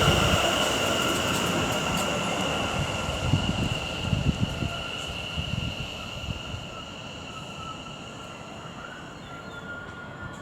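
Class 730 electric multiple unit on the rails: a steady high electric whine over wheel-on-rail rumble, with a few low thumps, all dying away.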